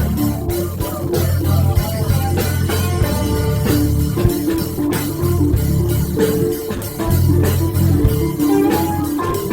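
Background music: guitar-led rock-style track with bass and a drum beat.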